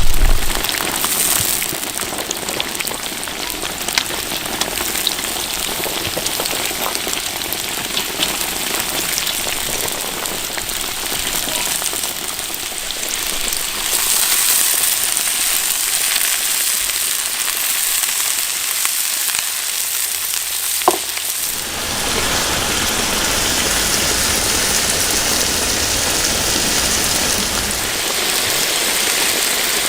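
Food sizzling as it fries in hot oil over a fire, a steady hiss that changes in tone about halfway through and again about two-thirds of the way through.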